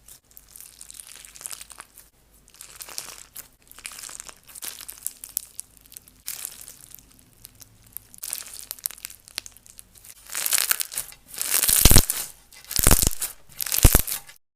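Slime being squeezed and worked, making crinkly, crackling sounds in irregular bursts that grow much louder over the last few seconds.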